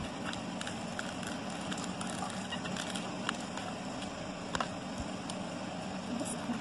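Light clicks, taps and crackles of small paper and plastic toy pieces being handled and set down on a tiled floor, over a steady background hiss.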